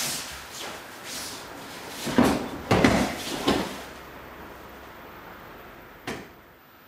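Aikido kote-gaeshi throw on tatami: swishing of gi cloth and feet moving on the mat, then a cluster of loud thumps and slaps a little over two seconds in as the thrown partner hits the mat in a breakfall, followed by quieter rustling while he is pinned and one short knock near the end.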